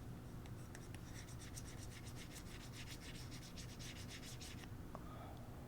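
Faint, quick scraping strokes, several a second, of a tool spreading and pressing solder paste across a reballing stencil to fill its holes. The strokes stop about a second before the end.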